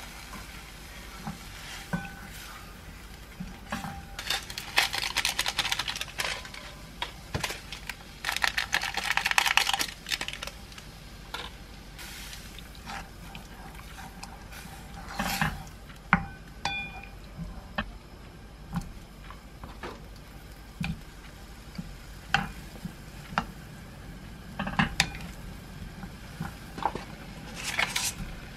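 A spatula stirring a milky sauce in a frying pan on the stove, scraping and knocking against the pan again and again while the sauce simmers. There are two longer noisy stretches about four and eight seconds in, and near the end a cup-noodle lid is peeled back.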